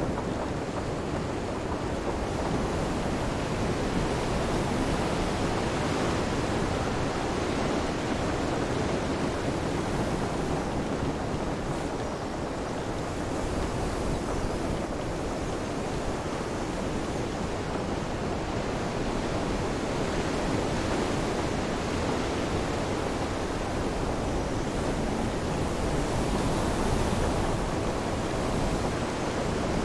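Storm ambience: a steady, dense rush of rain, wind and surf.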